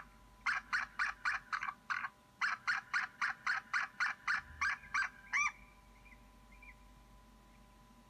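An eagle on its nest calling: a long run of sharp, high yelps at about four a second, broken by a short pause about two seconds in. The run ends on a longer note about five and a half seconds in.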